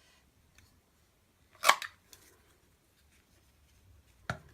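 Scissors cutting through card once, a single short sharp snip about one and a half seconds in, with a fainter click near the end.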